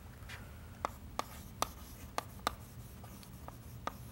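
Chalk writing on a blackboard: a handful of sharp, irregular taps as the chalk strikes the board at each new stroke, with faint scraping between them.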